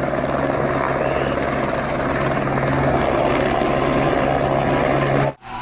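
Helicopter rotor and engine running steadily, cutting off suddenly about five seconds in.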